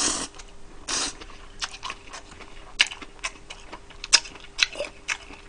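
A person slurping up thin somyeon noodles dressed in spicy whelk salad, two short slurps near the start and about a second in, then chewing with mouth open, with many irregular wet smacking clicks.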